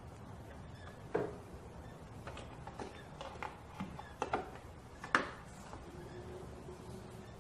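Window trim being pressed and slid into its clips around a car's rear quarter glass: a string of irregular light clicks and taps, the sharpest about five seconds in.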